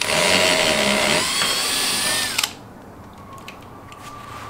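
Cordless drill boring a rivet hole up through a Corvette C6's front splitter and painted bumper, running for about two and a half seconds with its pitch changing about a second in, then cutting off suddenly.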